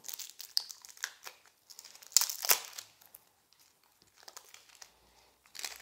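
Thin cellophane shrink-wrap crinkling and tearing as it is peeled off a card box with a fingernail, in irregular bursts, loudest about two seconds in.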